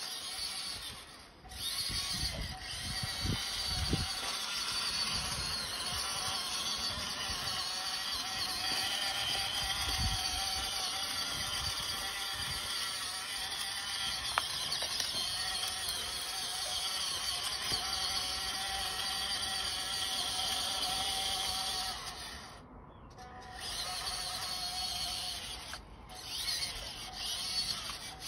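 Electric drive motor and gearbox of a radio-controlled model truck whining steadily as it drives, cutting out briefly about a second in and again for a couple of seconds about three-quarters of the way through. A few low knocks come in the first few seconds.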